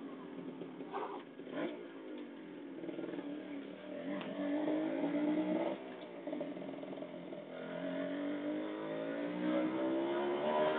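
Kawasaki Ninja motorcycle engine pulling through the gears. Its pitch climbs steadily, drops sharply at a shift about six seconds in, then climbs again. There are two short knocks early on.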